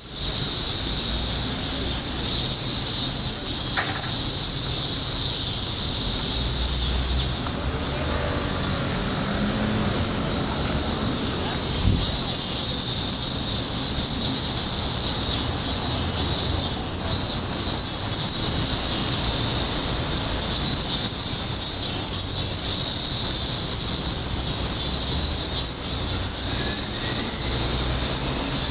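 Chorus of cicadas: a loud, continuous, high-pitched shrill buzz that holds steady throughout, over a faint low rumble.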